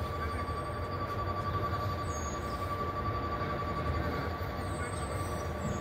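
Diesel engine of a Peterbilt garbage truck with a New Way body running steadily: a constant low rumble with a steady high whine on top.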